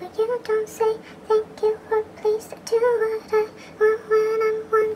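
Background music: a high voice singing a quick run of short notes, a few a second.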